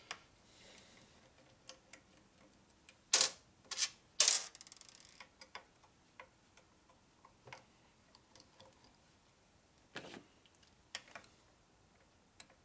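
Sparse metallic clicks and knocks from a hand tool working on the shaft of a Harley WLA 45ci transmission, with two louder knocks about three and four seconds in; the louder knock is followed by a short run of quick ratchet clicks, and a few more single clicks come near the end.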